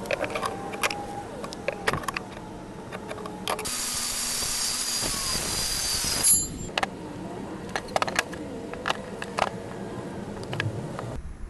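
A DeWalt 20V MAX cordless circular saw cuts through a pine board for nearly three seconds with a steady high whine, stopping abruptly. Sharp clicks and wooden knocks from handling the tape measure and boards come before and after the cut.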